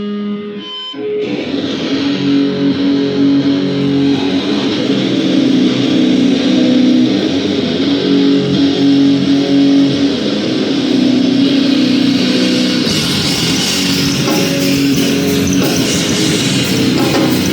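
A live band starts its set with loud, heavily distorted electric guitar playing long sustained chords over a steady drone, breaking in about a second in. About two-thirds of the way through it turns brighter and noisier.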